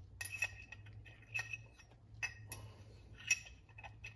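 Several light metallic clinks and ticks of the steel parts of a Circle D bolt-together torque converter as the bladed turbine wheel is handled and lifted off the housing, the loudest a little past three seconds in, over a steady low hum.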